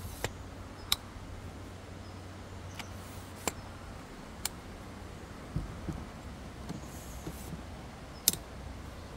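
Pieces of iron being handled and set down: scattered sharp clicks and a few soft knocks. A low wind rumble eases about halfway through.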